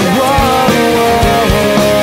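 Background rock music with a drum beat and a sustained, gliding melody line.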